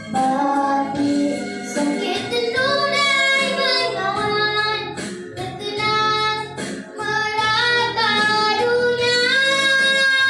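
A young girl singing a Malay patriotic song solo into a microphone over backing music, ending on a long held note.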